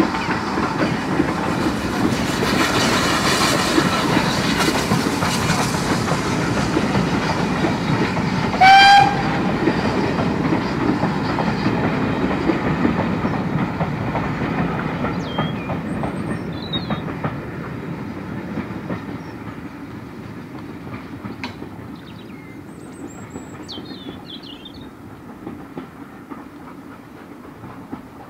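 GWR Small Prairie 2-6-2 tank engine No. 4555 and its coaches running past, a steady rumble and clatter of wheels on rail, with one short steam whistle blast about nine seconds in. The train sound then fades away as it recedes, leaving a few bird chirps.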